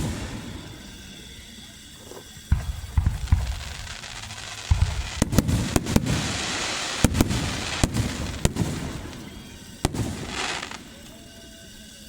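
Aerial fireworks exploding: about a dozen sharp bangs, each followed by a low rumble, with a spell of dense crackling in the middle.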